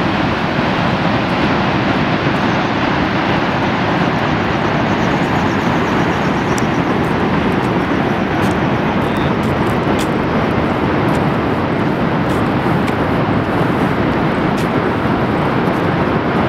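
Loud, steady rush of the Horseshoe Falls at Niagara, thousands of tonnes of water pouring into the gorge, an even roar with no let-up.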